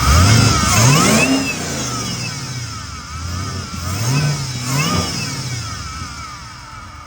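Camaro ZL1's supercharged LT4 V8 being revved: one quick rev about a second in, then a double rev around four to five seconds, each falling back to idle. A high supercharger whine rises and falls with each rev, the blower now wearing a Griffin Motorsports lid.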